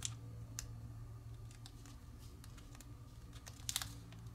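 A sheet of kami origami paper being pinched and creased between fingers: faint, scattered crackles and clicks, with a short cluster of them near the end, over a steady low hum.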